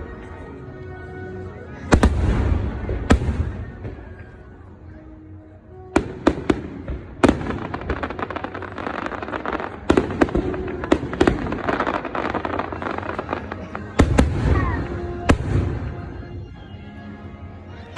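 Fireworks bursting in quick series of sharp booms and crackles, with the show's music playing underneath.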